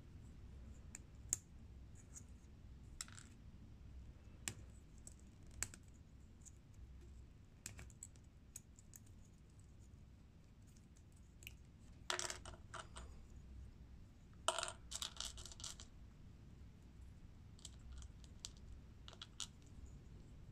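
Small LEGO-compatible plastic building-block pieces clicking and tapping as they are handled and snapped together: scattered single clicks, with two quick runs of clicks a little past halfway through.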